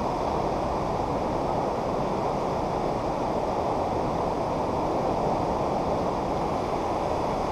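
Steady rush of fast-flowing floodwater from a river in flood, an even noise with no breaks.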